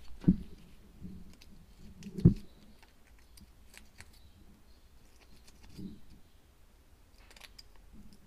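Light metallic clicks and scrapes of a feeler gauge worked between the cam followers and their guide on a Detroit 2-53 cylinder head, checking follower clearance. Two dull knocks of handling stand out, one just after the start and one about two seconds in.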